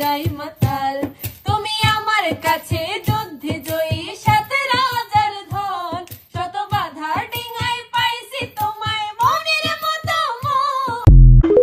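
Background music: a Bengali song with a high voice singing over a steady beat. It cuts off near the end with a loud low thump.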